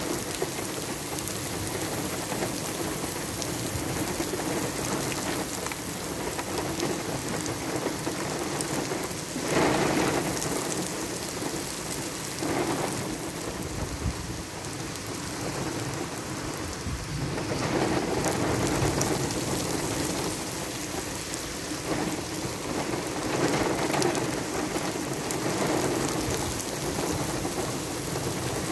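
Heavy monsoon downpour hissing and splashing on pavement, a dense steady rush of rain with a few brief louder surges, the strongest about ten seconds in.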